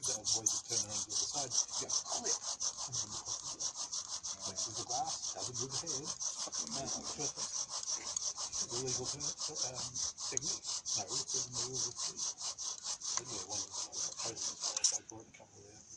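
Bow drill fire-making: the wooden spindle grinding and squeaking in the hearth board as the bow is sawn back and forth in quick, even strokes, several a second. The drilling is hard enough to send up smoke, building an ember, and it stops suddenly about a second before the end.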